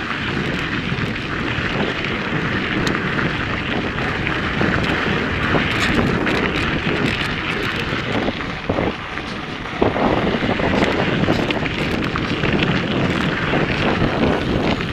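Wind rushing over the camera's microphone on a moving mountain bike, with the tyres rolling over a dirt and gravel trail and small rattles and ticks from the bike. The rush eases for about a second near the middle, then comes back louder.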